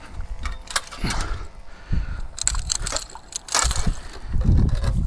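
Irregular clicks, knocks and scrapes of a long-handled landing net being picked up and handled on a concrete seawall, over a low rumble of wind on the microphone that swells near the end.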